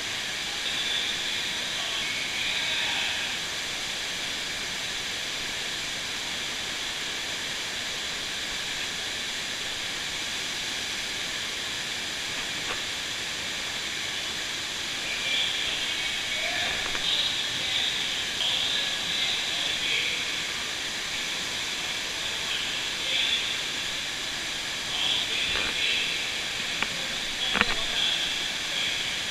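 Steady rushing hiss of water pumped across an indoor surf simulator's sheet wave, heard close by.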